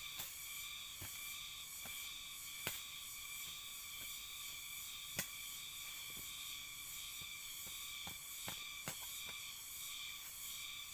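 A short-handled hand hoe chopping into the soil in irregular single strikes, the sharpest about two and a half and five seconds in, over a steady high insect drone.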